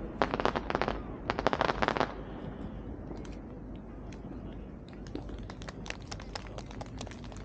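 Fireworks crackling: a dense, rapid crackle of many small reports for about the first two seconds, then thinning out to scattered faint pops.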